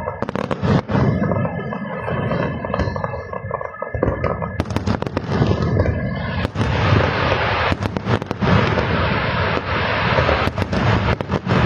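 Aerial fireworks bursting: clusters of sharp bangs over a dense, continuous rumble of explosions that thickens about halfway through.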